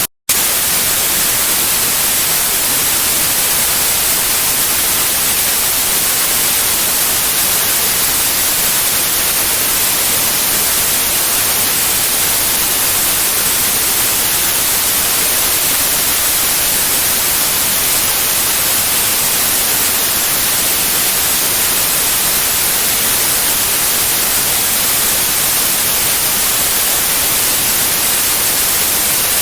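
Steady white noise, an even hiss strongest in the highs, broken by a split-second gap of silence just after it begins.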